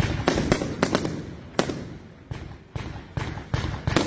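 Firework batteries firing: a quick run of sharp bursting cracks in the first second and a half, then fewer, softer bangs and thumps spaced out through the rest.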